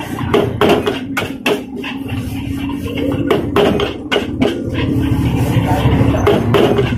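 Metal spatula clanking irregularly against a wok while fried rice is stirred and tossed, over a steady low rumble.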